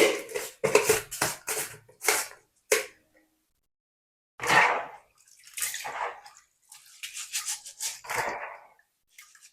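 Uncooked rice being washed by hand in a bowl of cold water with salt: a quick run of short splashing swishes in the first three seconds, then slower, longer swishes.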